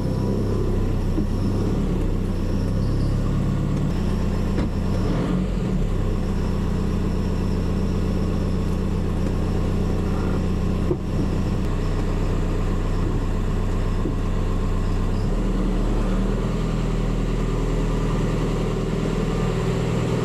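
VW Golf engine running steadily at a standstill, with a single sharp knock about eleven seconds in.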